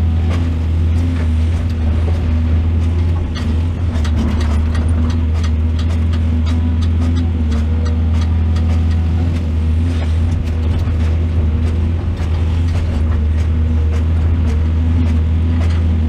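Excavator's diesel engine running steadily, with scattered short knocks and clanks over it.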